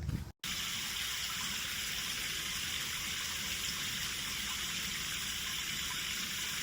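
Steady, even rush of running water that does not rise or fall, starting abruptly with a cut about half a second in.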